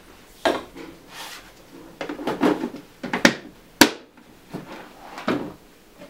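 Irregular knocks and clatters of containers and utensils being handled and set down on a countertop, about eight in six seconds, the sharpest about four seconds in.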